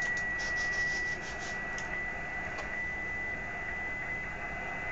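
Radio receiver tuned to an empty satellite transponder: steady static hiss with a thin, steady high whistle, typical of a local birdie, and a few light clicks in the first two seconds.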